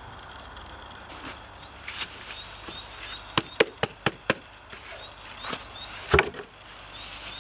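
Wooden birdhouse knocked to shake the old nest out into a plastic rubbish bag. There are five quick sharp knocks, then one heavier thump about six seconds in, with some rustling of nest material and the plastic bag.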